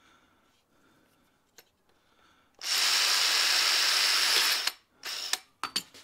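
Metabo 18 V cordless drill running for about two seconds as it bores a hole through a small metal bracket on a plastic toilet-cistern part, then a short second burst of the trigger and a few sharp clicks as it is lifted away.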